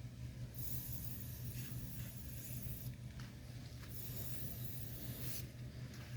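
Two bursts of compressed air hissing from an electronics duster can, the first about two seconds long and the second shorter, over a steady low hum.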